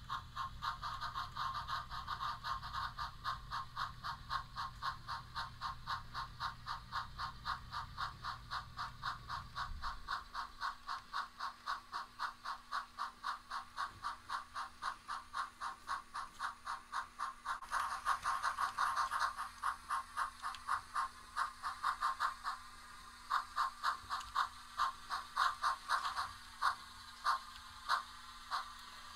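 Simulated steam exhaust chuffing from an HO-scale Bachmann locomotive's DCC sound decoder: steady, regular chuffs, several a second, spacing out to about two a second toward the end. A low hum runs underneath for the first ten seconds or so.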